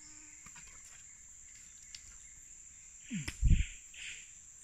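Insects buzzing in one steady high tone throughout. About three seconds in, a brief loud low sound breaks in, followed by a softer rustle.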